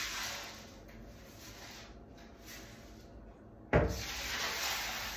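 Rubbing and scraping noises, with a sudden knock just under four seconds in followed by more scraping.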